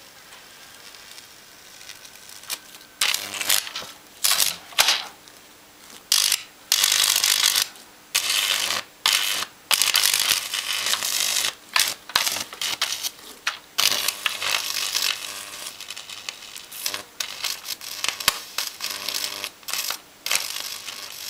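High-voltage electrical arcing from a microwave oven transformer across a Dell motherboard, burning into the board: harsh crackling and buzzing bursts that start and stop irregularly as the probe touches and lifts, over a faint mains hum.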